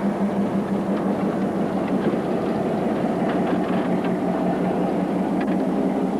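Diesel-electric locomotive running steadily, a constant deep hum with faint clicks over it.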